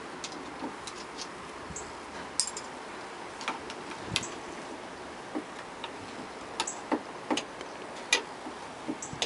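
Light metallic clicks from an Allen key working the clamp bolts that hold a steering arm to its antler as the bolts are unscrewed: scattered, irregular ticks, coming closer together near the end.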